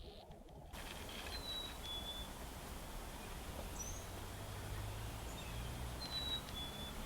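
Steady outdoor background noise with a bird calling: a short falling whistle followed by a level note, given twice, with a brief higher chirp between them.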